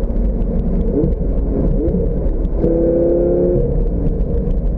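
Lamborghini engine running as the open-top car drives along, under a heavy low rumble of road and wind noise. About two and a half seconds in, the engine note holds a steady pitch for about a second.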